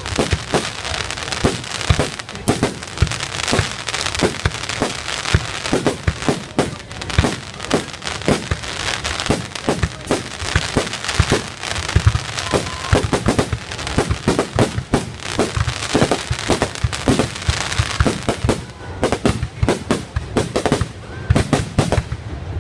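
Fireworks going off in a continuous rapid run of bangs and crackles, several reports a second, with louder single booms scattered among them.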